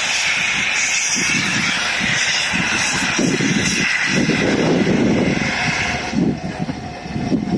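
LMS Coronation class steam locomotive 46233 'Duchess of Sutherland' pulling away slowly, its cylinder drain cocks blowing a loud hiss of steam over the slow chuffs of its exhaust. The hiss dies down about six seconds in, leaving the uneven exhaust beats.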